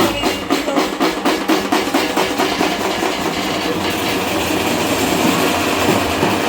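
Loud drumming with fast, regular beats that give way after about three seconds to a dense, steady din.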